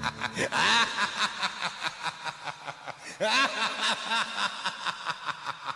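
A cackling laugh: a rapid, even run of "ha-ha" pulses with two louder bursts that swoop up and down in pitch, about half a second and three seconds in, the pulses fading toward the end.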